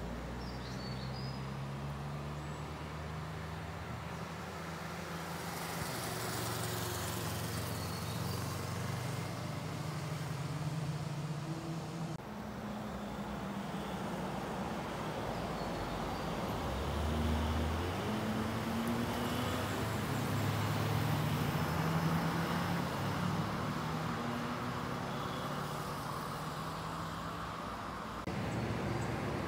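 Road traffic passing: a motorcycle, then a pickup truck and cars, their engines running with pitch that rises and falls as they go by. The sound changes abruptly twice, at about 12 seconds and near the end.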